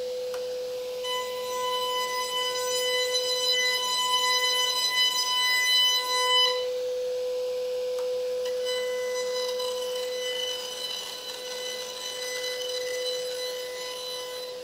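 High-pitched, steady whine of a Leehyun Machine CNC router spindle as its end mill shaves a wooden piano molding. The whine fills out with extra higher tones from about a second in to about six seconds, and again from about nine seconds on.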